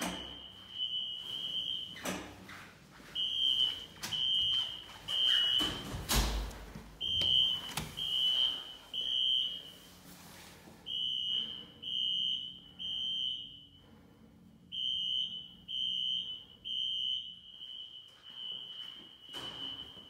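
Siemens ZH-MC-R (Wheelock ZNS) fire alarm horns sounding temporal code 3: three short high beeps, a pause, then three more, repeating, louder and fainter as the recorder moves between rooms. A loud thump about six seconds in.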